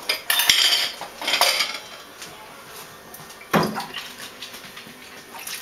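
Water splashing in a metal pot in a stainless-steel sink while a small dog is rinsed in it, with the pot clattering against the sink. There are bursts through the first second and a half and a sharp clatter about three and a half seconds in.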